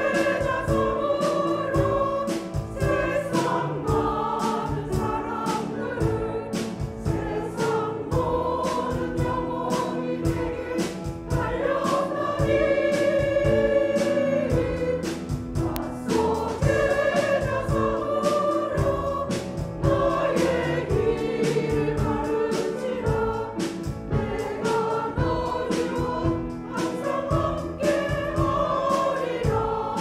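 Women's church choir singing a Korean hymn in Korean, holding long sung notes over a steady rhythmic instrumental accompaniment.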